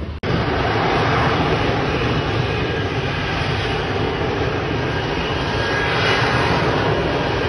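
Fighter jet engine noise, a loud, steady rumble and rush that swells slightly about six seconds in.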